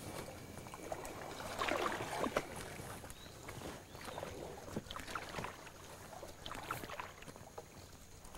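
Canoe paddle strokes in calm water: the blade dipping and pulling, with irregular drips and small splashes, a little busier about two seconds in.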